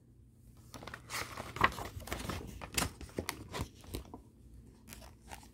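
A picture book's paper page being turned and pressed flat by hand: a run of soft papery rustles and small clicks, fading after a few seconds.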